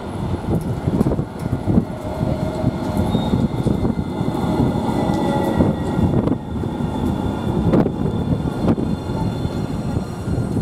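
An RET Alstom Citadis tram running in close alongside the platform: a rumble of wheels on the rails with a steady high electric whine over it and scattered clicks.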